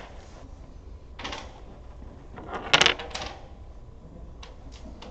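Dominoes clacking on a wooden table as pieces are played: a light clatter about a second in, then a louder cluster of quick clicks near the middle, and a few faint taps near the end.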